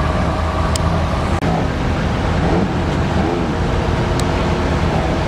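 Ferrari V8 engines pulling away at low speed: a Ferrari 348 running just before an edit cut, then a Ferrari F430 rolling out with its engine note rising and falling.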